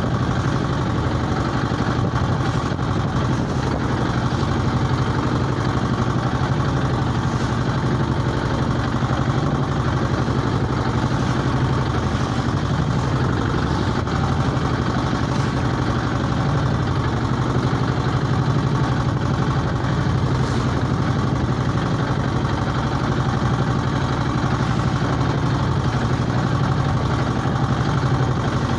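Small fishing boat's engine running steadily while the boat is underway, a constant low-pitched drone with no change in speed.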